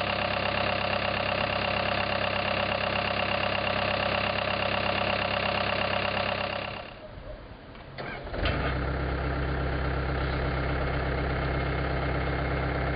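Caterpillar 289C2 skid steer loader's four-cylinder diesel engine running steadily. About seven seconds in the sound drops away for a second or so, a click sounds, and the engine comes back with a deeper, lower note.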